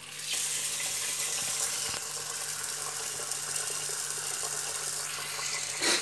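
Kitchen tap running, its stream pouring into a rice cooker's inner pot of rice and water to rinse the rice. The water comes on about a third of a second in and runs steadily, with a brief louder burst just before the end.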